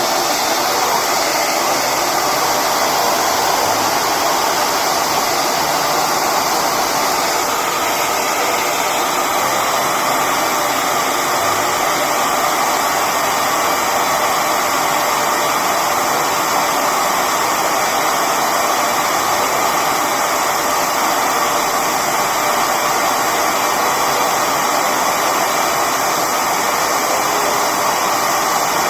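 Handheld hair dryer running steadily on high, blowing hot air onto a phone's back glass to soften the adhesive beneath it.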